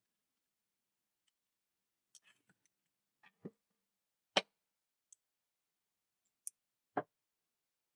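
About half a dozen scattered clicks and light knocks, the loudest about four and a half seconds in, from a screwdriver working at a plush toy's plastic battery compartment.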